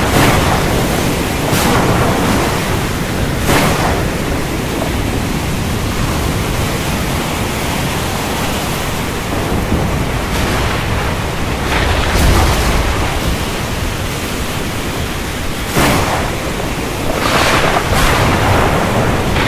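A storm soundscape: a loud, steady rush of wind noise, broken by about six sudden short bursts and a deeper rumble about twelve seconds in.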